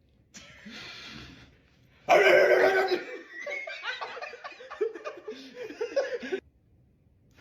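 A person makes a vocal sound effect: a breathy hiss lasting about a second, then a loud drawn-out vocal cry, followed by several seconds of laughter.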